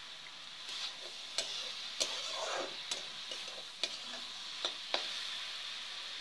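Vegetables sizzling in a steel kadhai over a wood fire, with a steady hiss. A metal spatula stirs them, knocking against the pan in sharp clicks about once a second and scraping the pan once about two seconds in.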